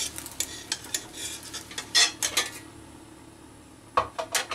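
Metal spatula scraping and clinking against a nonstick kadai as a rolled omelette is lifted out: a run of clicks and scrapes, the loudest about two seconds in, then a quieter pause and a few more sharp clinks near the end.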